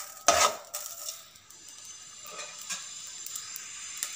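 Metal spoon scraping and stirring dry cumin and fenugreek seeds in an aluminium pan, with one brief loud scrape about half a second in and a lighter one just after. Then only a faint hiss with a few light ticks.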